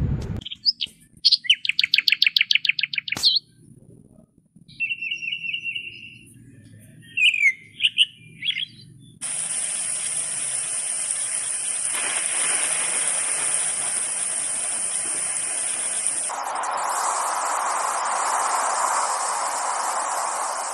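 A small songbird singing: a fast trill, then a held whistle and a few short chirps. About nine seconds in, steady rain starts, an even hiss that grows fuller about sixteen seconds in.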